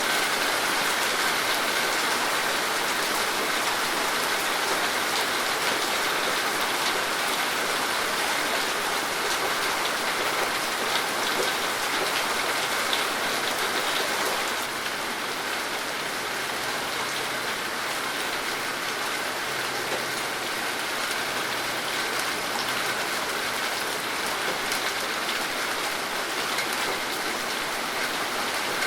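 Steady rain falling, a dense even hiss sprinkled with many small drop ticks; it eases slightly about halfway through.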